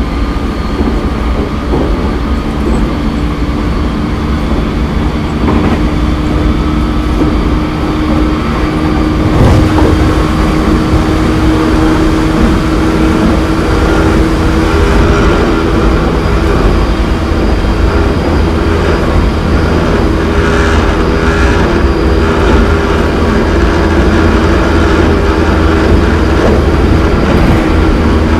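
Running noise inside a JR East 209-500 series electric train's motor car: the traction motors hum with a steady tone over wheel-and-rail noise. The sound grows louder about nine seconds in.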